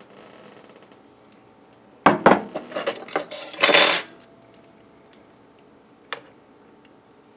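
A ceramic dinner plate set down on the counter and metal kitchen tongs picked up: about two seconds of clattering china and metal. A single click follows a couple of seconds later as the tongs go into the cooker pot.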